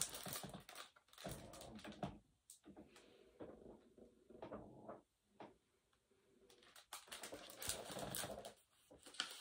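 Faint handling noise from a large picture book being held up and moved: soft paper rustles and small knocks in a quiet room, busiest about seven to nine seconds in.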